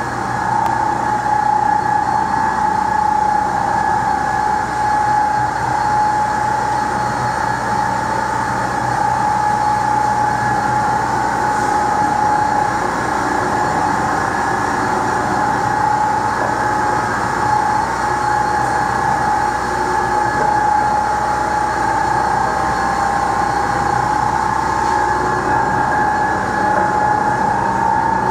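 A 2008 Mepaco dual ribbon blender running with its trough empty. The electric drive motor and gearbox give a steady whine, one strong tone with a fainter higher one over a low hum.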